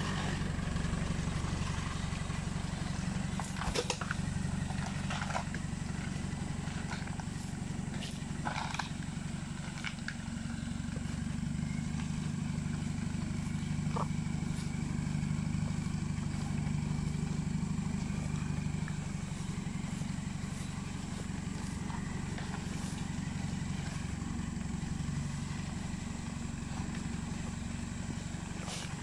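Pickup truck engine running steadily at low revs as the truck crawls slowly along. A few sharp knocks and clicks come in the first ten seconds.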